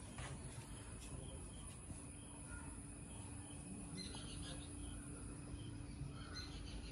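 Faint outdoor ambience: scattered small bird chirps and insect calls over a low rumble of wind, with a faint steady hum underneath.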